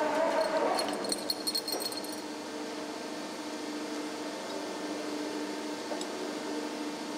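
Steady hum of a hull-plate forming press's machinery, with light metallic clinking of the lifting chains about one to two seconds in.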